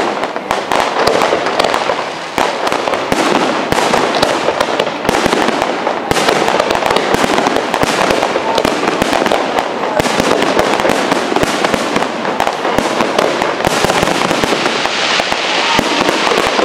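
Fireworks display: aerial shells bursting in a dense, unbroken run of bangs and crackling.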